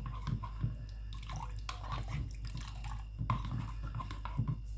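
A runny butter mixture being stirred by hand in a plastic bowl, with irregular soft knocks and wet stirring noises as the utensil works round the bowl, over a steady low hum.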